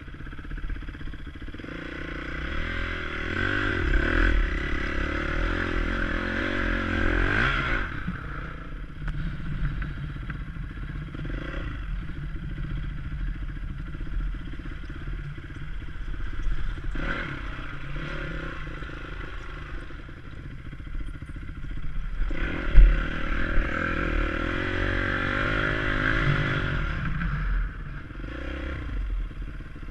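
Honda CRF250X's single-cylinder four-stroke engine running at slow trail pace, with two longer spells of rising throttle, and chassis clatter over rough dirt. A single sharp knock stands out a little over two-thirds of the way through.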